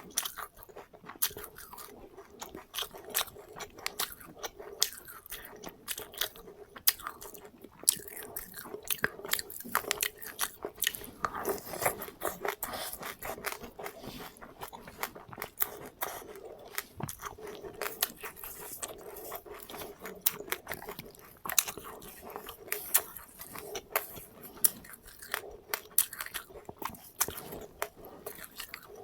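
A person chewing and crunching seeds at close range: many irregular sharp crunches and clicks, several a second.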